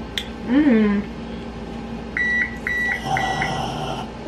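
A kitchen appliance beeps three times, short high tones about half a second apart, then a steady hum comes in.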